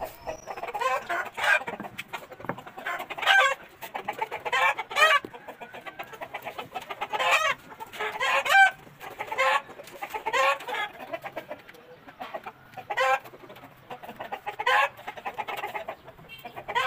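Caged roosters and hens clucking and crowing, with a loud call every second or two.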